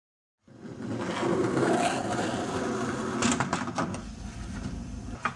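Skateboard rolling, then several sharp clacks from about three seconds in as the board hits and rides the edge of a wooden table.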